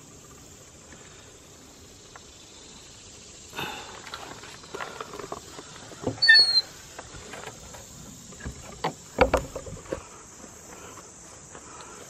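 Steady high chirring of crickets and other insects, under scattered wooden knocks and clatter as a small log smokehouse's wooden door is handled. A short sharp squeak, the loudest sound, comes about six seconds in, and a heavy low thump about nine seconds in.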